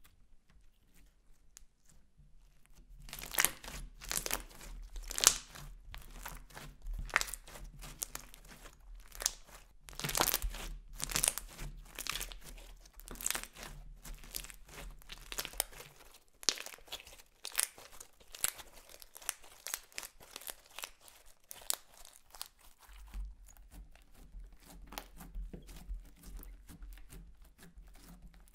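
Hands kneading, squeezing and pressing a lump of clear slime mixed with makeup and glitter, making a quick run of sticky crackles and pops. They begin about three seconds in and thin out near the end.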